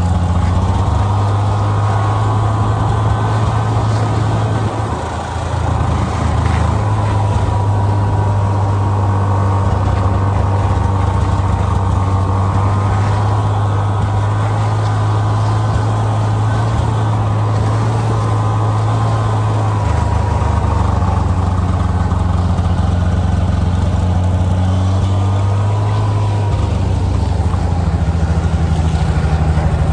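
Snowmobile engine running while riding along a trail towing a sled: a steady low drone with a high whine above it. The engine note drops briefly about five seconds in and shifts a few more times as the speed changes.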